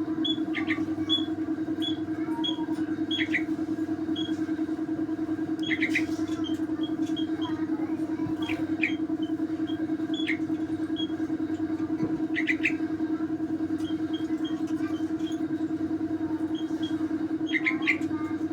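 Young yellow-vented bulbul chirping in short high chips about twice a second, with a louder quick call every few seconds. A steady low hum runs underneath.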